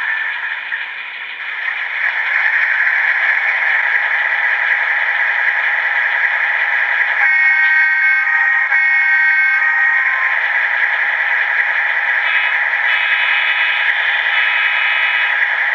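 Sound decoders in two HO-scale EMD MP15 model diesel locomotives, one MRC and one SoundTraxx Tsunami, playing diesel engine sound through small onboard speakers. The sound is tinny and has no low end. About seven seconds in, a horn sounds twice, and further steady horn-like tones come in about twelve seconds in.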